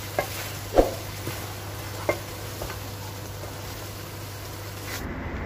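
Wooden spoon stirring a thick tomato-and-fish sauce in a nonstick frying pan, knocking against the pan a few times in the first three seconds, over the steady hiss of the sauce frying.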